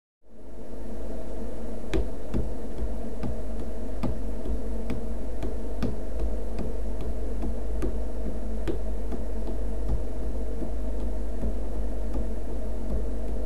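A steady low hum that fades in at the start, with irregular sharp clicks and ticks over it, roughly one or two a second.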